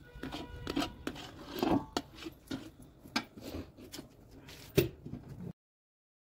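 Long-handled metal spatula scraping and stirring thick, reducing milk paste (khoya) against the inside of a metal kadhai: a string of uneven rasping strokes. The sound cuts off suddenly about five and a half seconds in.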